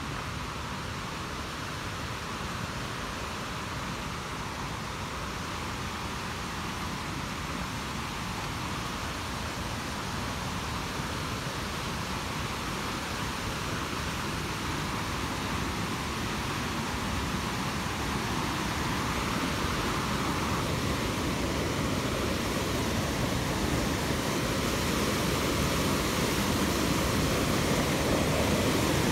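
Steady rush of flowing mountain water, growing gradually louder throughout.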